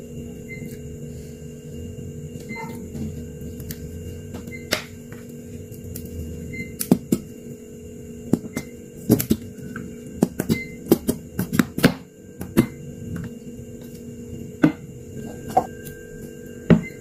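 Short sharp clinks and taps of a metal spoon and plastic chopsticks against a bowl of noodle soup, scattered through the second half, over a steady electrical hum.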